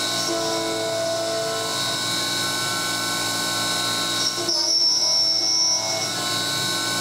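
CNC mill spindle, driven by an old brushless DC motor, running an end mill through 6061 aluminium, a steady machining whine made of several steady tones. About four and a half seconds in the tone changes for a second or so: the lower notes drop out and a high whine grows louder, then the sound returns to its earlier pitch.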